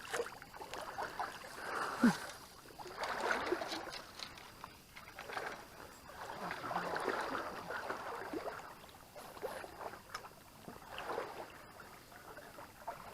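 Water sloshing and splashing in a shallow creek, in irregular swells every second or two.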